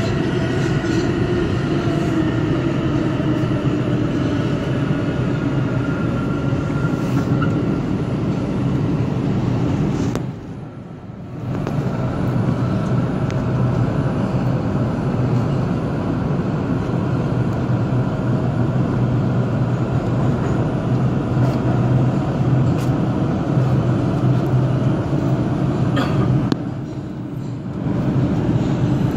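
NYC subway 4 train running through a tunnel, heard from inside the car: a steady loud rumble of wheels and motors. It drops briefly quieter about ten seconds in and again near the end.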